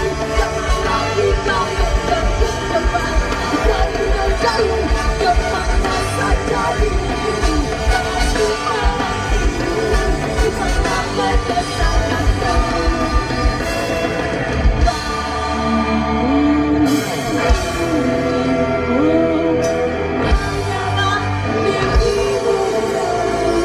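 Ska band playing live through a concert PA, with vocals over electric guitars, bass and drums, heard from within the crowd. The drum beat drops out for a few seconds past the middle while the voice slides between held notes, then comes back in.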